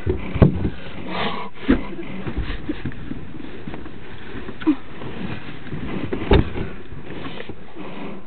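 Scattered light knocks and rustling over a steady hiss inside a car cabin, the strongest knocks a few seconds apart.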